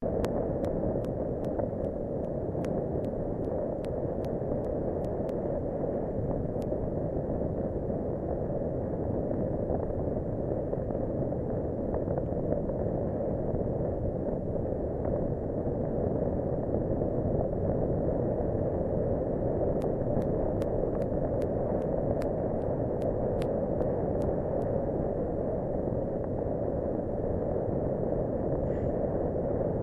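Steady low rumble of wind buffeting and rolling noise on a camera travelling along a tarmac path. Faint light ticks come at about three a second in the first few seconds and again around twenty seconds in.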